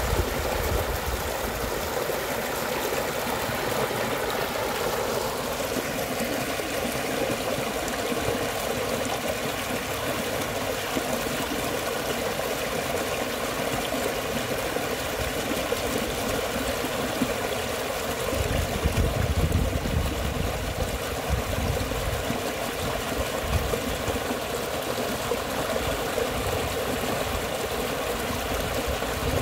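Small muddy stream rushing and splashing steadily down a shallow earth channel. A few low rumbles come in a little past the middle.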